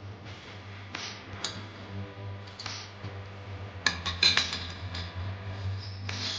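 Small metal parts clinking and tapping against each other in scattered single knocks, with a quick cluster of ringing clinks about four seconds in, over a low steady hum.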